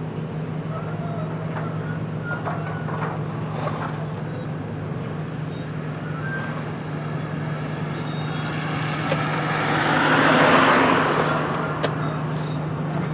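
Steady low engine hum with scattered short, high-pitched metallic squeals. About ten seconds in, a louder rush of noise swells and fades.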